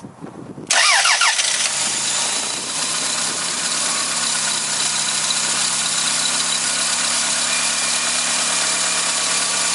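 A Toyota Camry's 2.2-litre four-cylinder engine (5S-FE) starting with its oil filler cap off. It catches suddenly about a second in, the revs flare up briefly, and then it settles into a steady idle.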